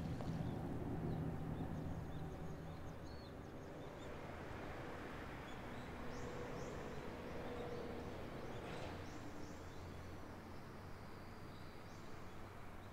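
Open-air ambience: faint, short bird chirps over a steady low hum. A low rumble fades away over the first two seconds.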